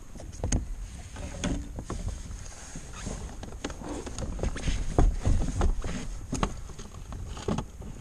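Several irregular knocks and bumps on a Hobie Compass plastic kayak as the catch is handled aboard, over a low wind rumble on the microphone.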